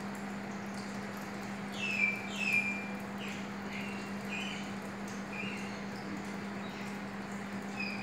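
Steady low hum of a saltwater aquarium's pump and equipment, with a scattering of short, high, falling chirps, the loudest about two seconds in.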